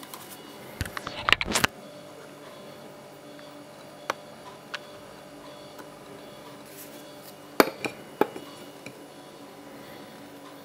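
Handling noise: a cluster of clicks and knocks about a second in, a single click around four seconds in, and two sharper knocks near eight seconds, over a faint steady hum.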